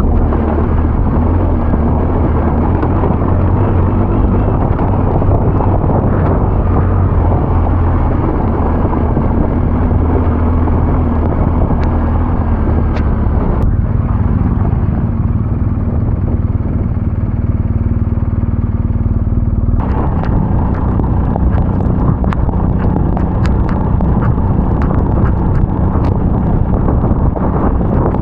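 Adventure motorcycle engine running steadily under way, with heavy wind and tyre noise. From about two-thirds of the way through, a rapid scatter of sharp ticks rides on top.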